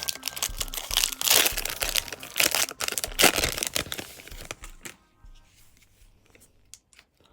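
Foil trading-card pack being torn open and its wrapper crinkled, a dense crackling with sharp snaps that dies down after about five seconds to a few faint clicks of handling.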